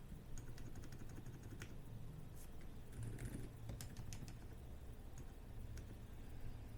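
Typing on a Xinmeng X98 Pro keyboard with Outemu Silent Peach silent linear switches and PBT doubleshot keycaps: soft, damped keystrokes. A quick run of keypresses comes in the first second, then scattered presses that thin out toward the end.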